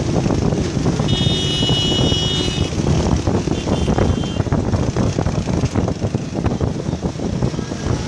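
Road vehicles running in a dense, loud mass of engine and traffic noise. A high, steady tone sounds for about a second and a half, starting about a second in.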